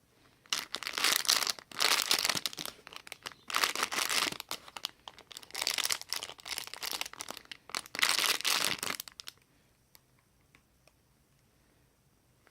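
Packaging crinkling as it is handled, in five or six loud rustling bursts that stop about nine seconds in.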